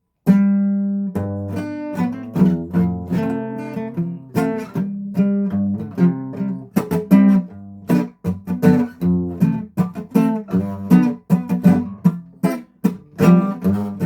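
Guitar strummed in steady repeated chords, starting just after a brief moment of silence.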